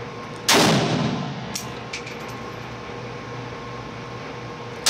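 A shot from a Century Arms Micro Draco AK pistol in 7.62x39 about half a second in, loud and echoing off the walls of an indoor range, followed a second later by a couple of light clinks; the next shot goes off right at the end. A steady hum runs underneath.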